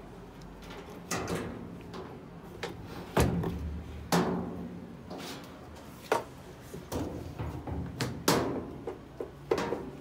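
Hard plastic knocks and clatters from a washing machine's plastic top panel being handled and lifted off. There are about eight sharp strikes at irregular intervals, the loudest around the middle and toward the end.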